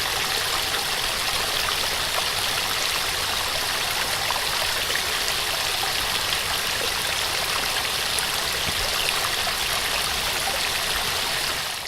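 Small waterfall pouring steadily: an even hiss of falling water with faint splashes and trickles through it, fading out right at the end.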